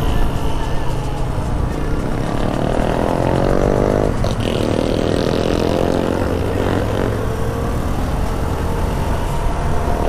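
Yamaha XJ6 inline-four motorcycle engine heard from the rider's seat while riding, with a rising engine note that dips about four seconds in and then climbs again.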